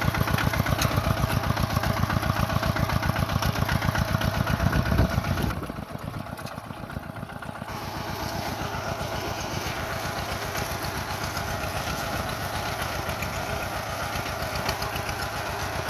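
Diesel engine of a small Kubota crawler bulldozer running with an even low pulse. About five seconds in it drops suddenly to a quieter, steadier running sound.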